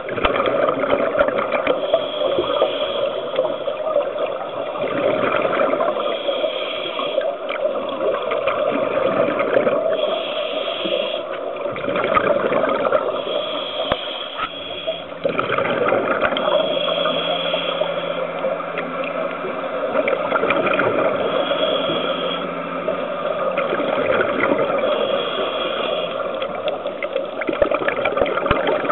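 Scuba regulator breathing heard underwater: a rush of exhaled bubbles returns every few seconds over a continuous gurgling wash.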